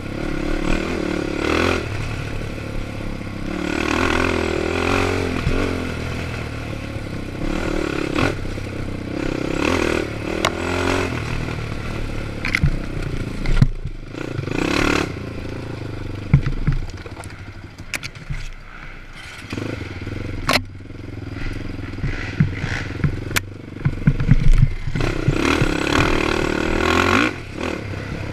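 Honda 450 quad's single-cylinder four-stroke engine revving in repeated surges as the throttle is worked on and off. It eases off for a stretch past the middle, then picks up again near the end. Sharp knocks and clatter come from the ATV bouncing over rough trail.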